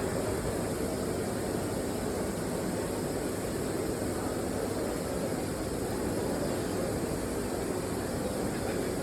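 Friction screw press's drive motor and flywheel running steadily, with no ram strike.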